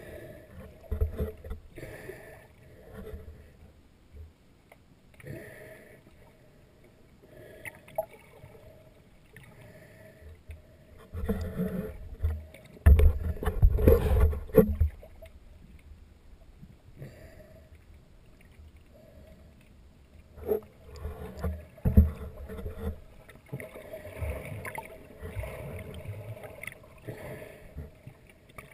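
Water sloshing and gurgling heard from underwater, muffled, with irregular knocks and bumps. It is loudest for a few seconds about halfway through, as the snorkeller comes up to the waterline, and swells again a little later.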